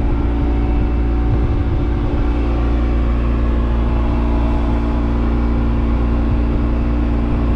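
Motor of a homebuilt 19-foot Pacific Power Dory running at a steady speed as the boat cruises along a river, a constant even engine drone.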